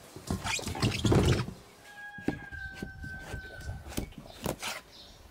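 A large peeled zucchini handled and set down on a wooden cutting board, with a thud about a second in. A kitchen knife then cuts into it, clicking sharply against the board several times. A steady high tone sounds in the background for about two seconds in the middle.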